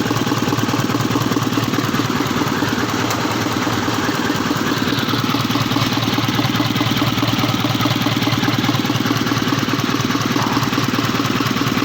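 Isuzu 4HJ1 diesel engine idling steadily with an even, rhythmic running sound. It runs only after being fed a starting aid, which the mechanic takes as a sign that the fault lies in the injectors.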